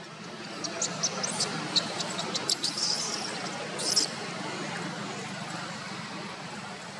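Baby macaque giving a run of short, high-pitched squeaks, with two longer squeals about three and four seconds in, over a steady background hiss.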